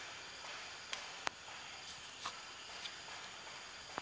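Forest background with a steady high insect hum, crossed by a few sharp clicks, two close together about a second in, the second the loudest.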